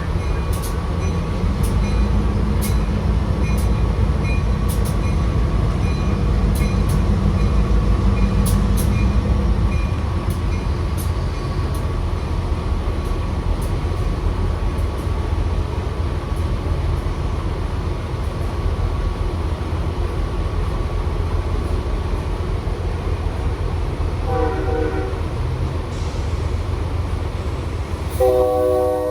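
A train rolling past with a heavy, steady rumble and sharp clicks from the wheels, easing off after about ten seconds. About three-quarters of the way through, the locomotive's air horn gives a short chord blast, and just before the end a louder, longer horn blast begins.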